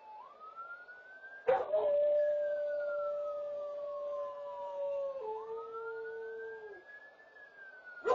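A German Shepherd howls: one long held note that starts suddenly about a second and a half in and drops to a lower pitch partway through, with a second howl beginning near the end. Under it a faint siren slowly rises and falls in pitch, which the dog is howling along to.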